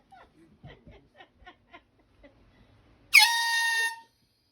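An air horn sounds once, about three seconds in: a loud, steady, held blast a little under a second long that cuts off sharply.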